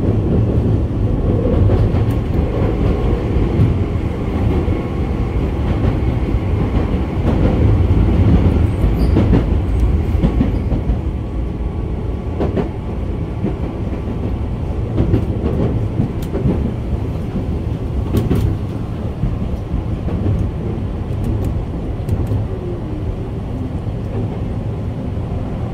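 Tokyu 8500 series train running, heard from inside the front car: a steady low rumble with scattered wheel clacks over rail joints. It runs quieter from about halfway through as the train nears Kajigaya station.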